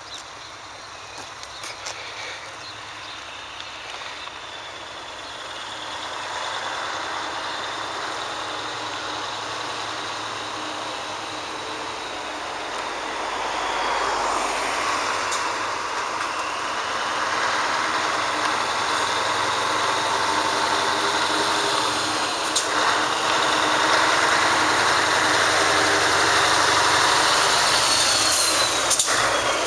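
Scania 143H 500 truck's V8 diesel running as the truck comes up close, growing steadily louder, with a thin high whine that dips in pitch twice.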